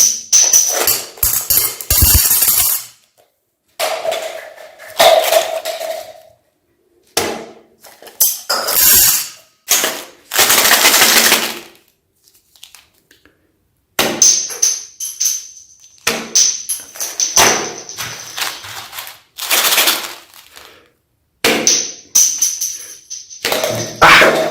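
Meat grinder crunching and crushing chocolate bars and hard candy, in about seven separate bursts that start and cut off suddenly, with dead silence between them.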